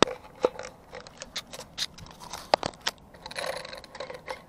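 Plastic clicks and rattles from a fuel pump module assembly being squeezed by hand, its spring-loaded housing pushed together, with a short scraping rustle about three seconds in. The squeeze checks that the reassembled module still compresses.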